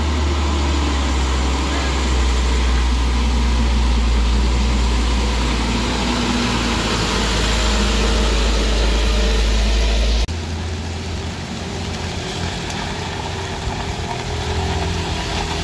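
Truck engines running amid road traffic, with a deep steady rumble that drops away abruptly about ten seconds in.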